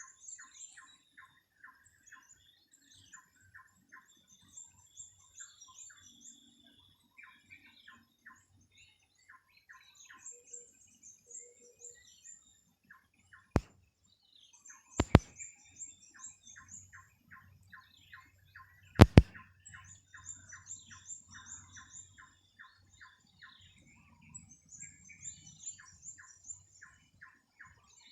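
Several birds calling at once in the morning: a steady series of short repeated chirps, with a rapid high-pitched trill coming back every few seconds and scattered higher chirps. A few sharp clicks cut through, one about halfway and then two pairs a few seconds apart; these are the loudest sounds.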